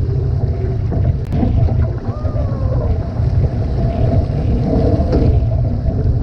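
Heavy wind buffeting the microphone over water rushing and splashing along the hull of a one-person outrigger canoe (OC-1) running downwind on choppy water.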